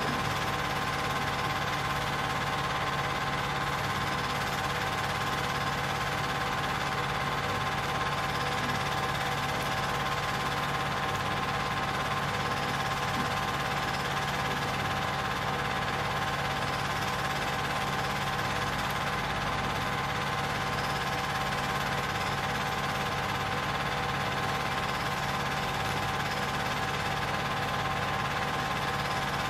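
Film projector running steadily, a constant mechanical whir that plays on without a break.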